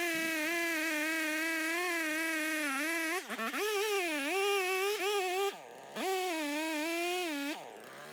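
Stihl MS 391 two-stroke chainsaw running at high revs through a log, its pitch wavering under load. The revs drop sharply three times in the second half as the throttle comes off between cuts.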